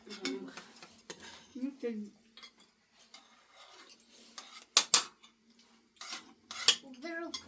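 Dishes and eating utensils clinking and knocking against each other in irregular strokes, with two sharp, loud strikes close together about five seconds in.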